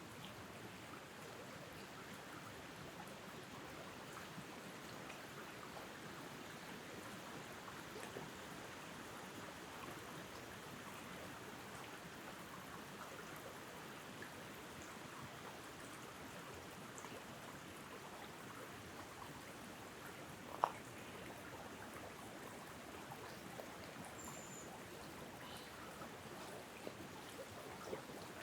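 Wind blowing through treetops: a steady rustle of autumn leaves. A single sharp click about two-thirds of the way through.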